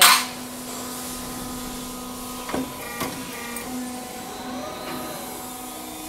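Garage door track roll forming machine running with a steady mechanical hum of several pitches. A short loud burst of noise comes right at the start, and two sharp clicks come about two and a half and three seconds in.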